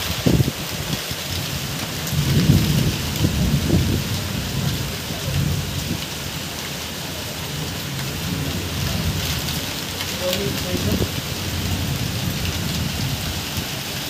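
Heavy monsoon rain pouring steadily onto clay-tiled roofs and trees, a dense even hiss, with low rumbling swells strongest about two to four seconds in.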